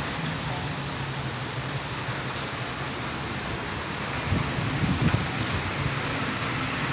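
Heavy rain falling in a steady hiss, with a low steady hum underneath and a few soft thumps about four to five seconds in.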